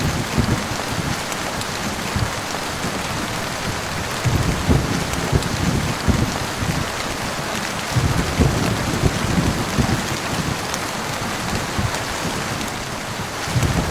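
Heavy, steady rain with low thunder rumbling underneath, swelling three times: a little before halfway, just past halfway, and again at the very end.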